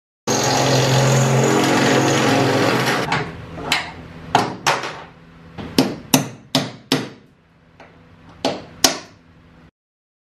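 A power tool runs steadily for about three seconds and stops. It is followed by about ten sharp hammer blows at uneven intervals, struck while working on the fittings of a fibreglass camper-top luggage rack.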